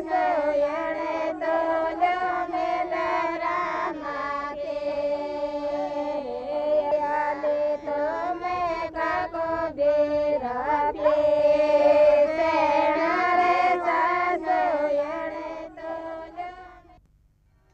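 A group of women and girls singing a song together in unison, on long held notes. It fades out near the end.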